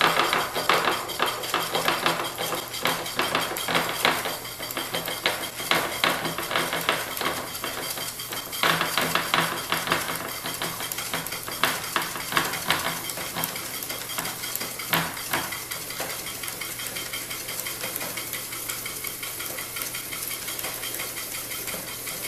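Hand-cranked wooden rewind mechanism of a Senior 20 roll-playing organ, its rubber o-ring belt driving the music spool as the paper roll winds back at speed. It makes a fast, uneven clatter and rattle that eases after about sixteen seconds into a quieter, steady rushing.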